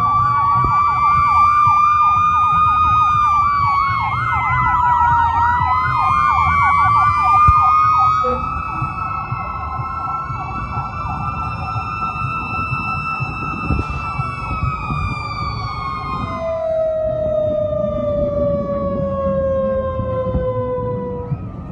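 Several fire engine sirens sounding together. A fast yelp runs over slow rising and falling wails for the first several seconds, then the wails carry on alone. Near the end a siren winds down in a long, slowly falling tone.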